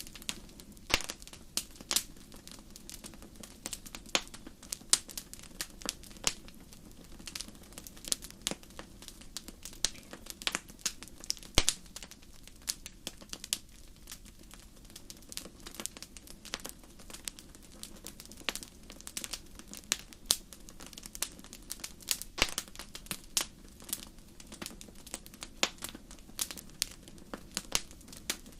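Wood fire crackling, with irregular sharp pops and snaps over a low steady hiss of burning.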